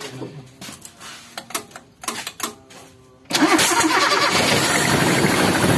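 Toyota Kijang Super petrol engine being started: a few seconds of quiet, irregular clicks and sputters, then about three seconds in it catches and runs loud and steady. The engine came in hard to start and running rough, which the mechanic puts down to a compression leak.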